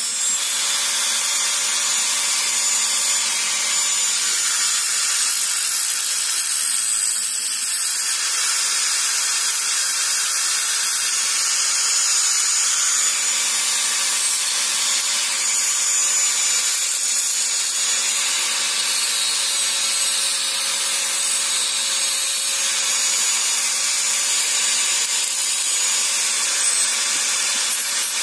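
Small handheld angle grinder running steadily, its disc grinding a small metal part: a constant motor hum under a high grinding hiss.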